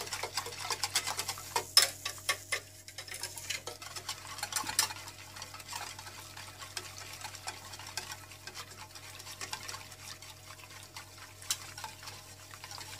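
A utensil stirring a cold milk, cocoa and crushed-Oreo mixture in a stainless steel saucepan, scraping and clicking quickly against the pan. The stirring is busier and louder for the first five seconds or so, then goes on more softly, over a faint steady hum.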